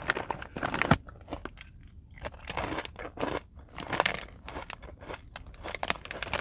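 Close-up crunchy chewing of Beaver Nuggets, a sweet puffed corn snack like Cracker Jack, eaten with the mouth closed: a run of short, irregular crunches, the sharpest about a second in.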